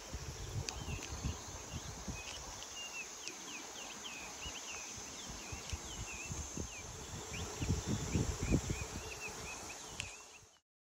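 Birds calling in quick, short chirps and whistles over a steady high insect hiss, with wind buffeting the microphone in low gusts, strongest near the end. All of it fades out just before the end.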